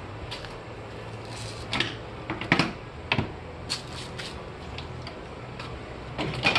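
Irregular clicks, rattles and a few sharper knocks from hands working the AC condenser and radiator stack of a car loose, over a steady low hum. The loudest knocks come about two and a half seconds in and again near the end.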